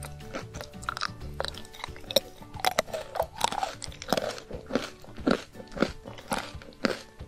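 Close-up crunching as a chocolate-coated crispy cookie is bitten and chewed: a run of sharp crunches that gets denser after a couple of seconds. Soft background music runs underneath.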